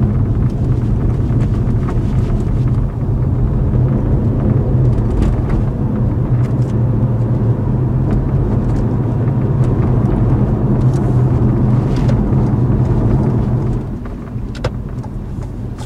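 Hybrid car driving on a road, heard from inside the cabin: steady road and tyre noise with a low hum, dropping somewhat in level near the end.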